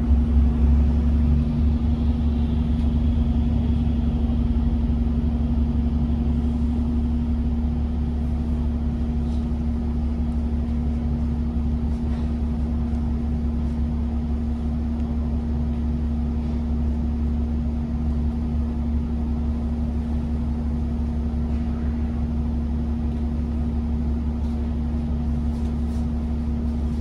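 Double-decker bus idling at a standstill, heard inside the cabin as a steady low engine rumble with a constant hum. Another double-decker bus drives past close by in the first couple of seconds, making the start a little louder.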